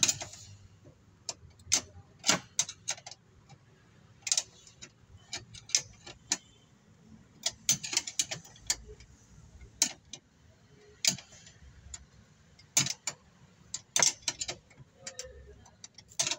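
Metal combination wrench turning bolts with washers on a steel battery-mounting bracket: sharp, irregular metallic clicks and clinks, singly and in small clusters, as the wrench is fitted and turned.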